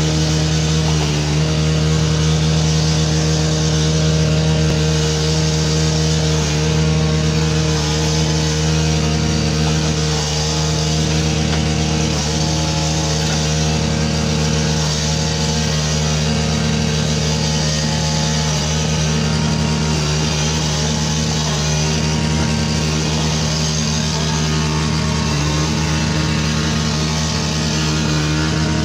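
String trimmer (weed wacker) motor running steadily at a constant high speed.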